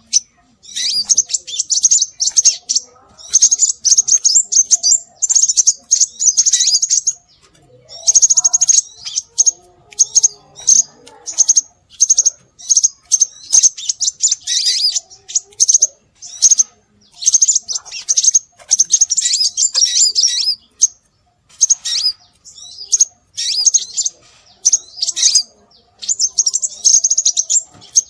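Scarlet minivet (sepah raja) calls as played for bird luring: rapid, high-pitched chirping phrases in bursts of one to two seconds with short pauses between them.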